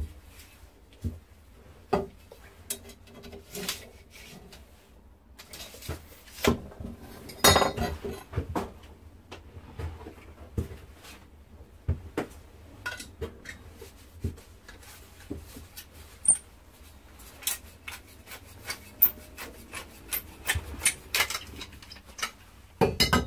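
Lengths of copper pipe and hand tools being handled on a workbench: scattered clinks and knocks of metal with some rubbing and scraping, irregular throughout.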